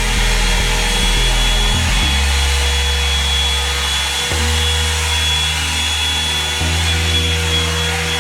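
Revlon 2-in-1 dryer and styler hot-air brush running on high heat: a steady rush of blown air with a thin high whine.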